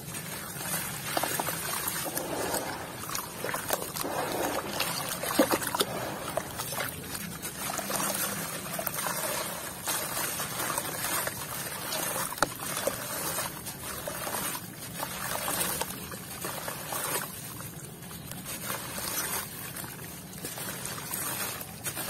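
Wet, gritty dirt crumbled and squeezed by hand, its grains trickling and splashing into a basin of water, with a couple of sharper crunches.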